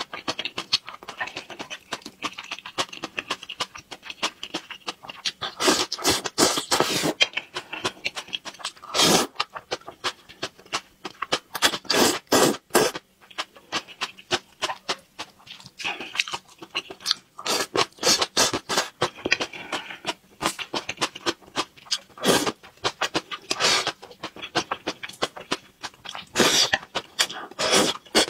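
Close-miked eating of saucy stir-fried noodles: several long slurps of noodle strands, with quick wet smacking and chewing clicks in between.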